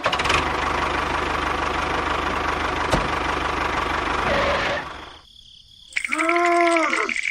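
Small engine running steadily, with a fast even rhythm, and cutting off about five seconds in. Near the end comes a short pitched call that rises and then falls.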